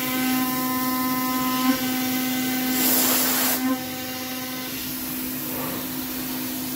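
Spindle of a PrintNC CNC mill running an 8 mm three-flute end mill on finishing passes in 6061 aluminium, a steady whine with a stack of higher ringing tones from the cut. A loud hiss lasts about a second around three seconds in, and the upper tones thin out near five seconds.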